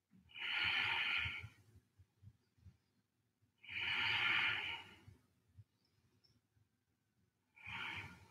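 A woman breathing audibly, three breaths: two long ones of over a second, about three seconds apart, and a short one near the end.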